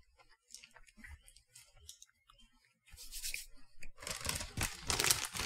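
Someone biting into and chewing a Country Ma'am chocolate chip cookie: faint small crunches at first, then louder bursts of crunching about three seconds in and over the last second and a half.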